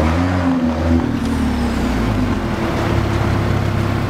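Alfa Romeo 4C's turbocharged 1750 four-cylinder engine and exhaust at low revs as the car creeps past. The note rises briefly in the first second, then settles into a steady low drone.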